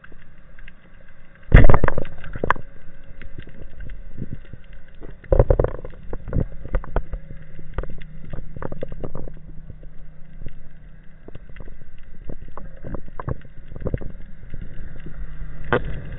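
Band-powered speargun firing underwater, a loud sudden bang about a second and a half in, followed by a second strong knock and many sharp clicks and knocks of the shaft and gear against the rock, over a steady low hum.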